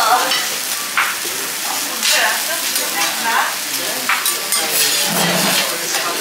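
Beef steaks and vegetables sizzling on a steel teppanyaki griddle while two steel spatulas scrape and clack against the plate, with sharp clacks every second or so.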